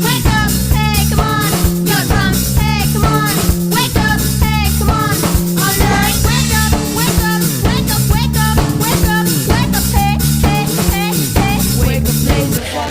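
Music with a steady drum beat, bass and guitar, with what may be singing over it.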